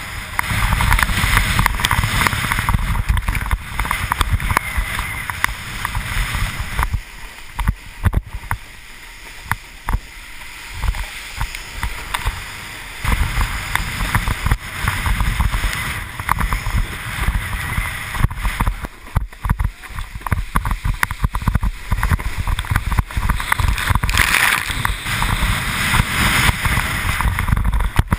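Windsurfer planing through choppy water in strong wind: a steady rush of water and spray, with heavy wind buffeting on the microphone and many small slaps and splashes against the board and camera housing. The low wind rumble eases for several seconds about a quarter of the way through, then comes back.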